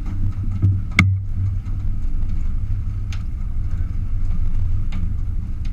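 Sportfishing boat's engine running steadily while the boat is underway. A sharp click cuts through about a second in, and a fainter one near three seconds.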